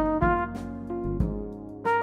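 Background music with brass lead melody over a steady bass line.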